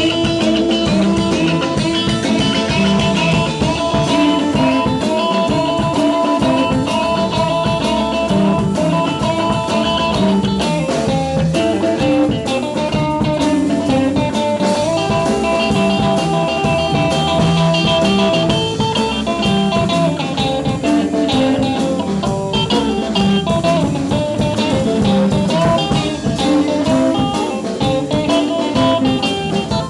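Live blues-rock band playing an instrumental passage, with an electric guitar carrying a melodic lead line of held notes and a few bends over the rest of the band.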